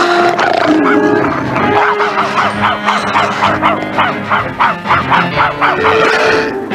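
Cartoon dog yelping and barking in a rapid series, about four a second, while it fights a panther, over background music.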